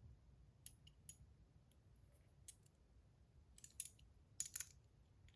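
Faint, scattered small clicks and light metal scrapes as buttons are fitted and screwed back onto a metal fidget spinner, with a few quick clicks close together about four seconds in.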